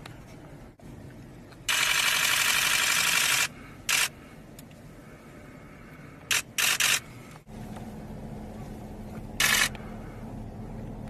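Camera shutters firing in rapid bursts: one long burst of nearly two seconds, then four short bursts, over a low street background with a steady low hum in the second half.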